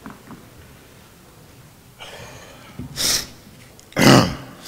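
A person's breaths close to a microphone: a faint one about two seconds in, a sharper one about three seconds in, and the loudest about four seconds in.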